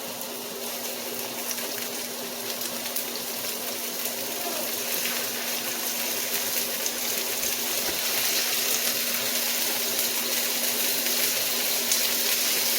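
Chicken pieces sizzling in hot oil in an electric skillet, a steady hiss with scattered small crackles that grows gradually louder.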